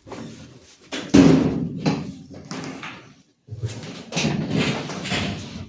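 Partly dismantled GE washing machine being turned upside down: a loud thump about a second in, then knocking and scraping of its cabinet and parts.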